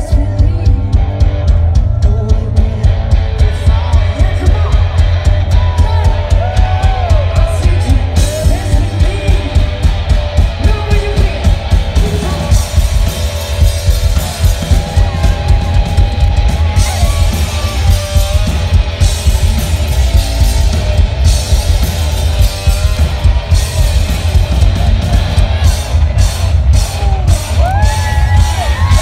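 Loud live rock music from a guitar-and-drums duo: an SG-style electric guitar played over a driving drum-kit beat.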